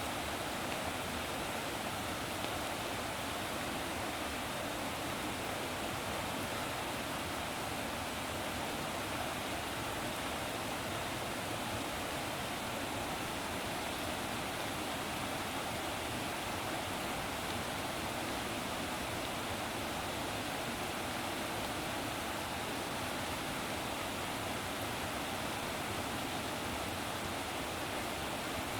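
Running water rushing steadily, an even continuous wash with no breaks or surges.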